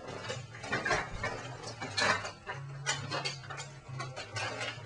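Paper and packaging rustling and crinkling as a present is handled and unwrapped on the floor, in a run of short, sharp crackles and clicks.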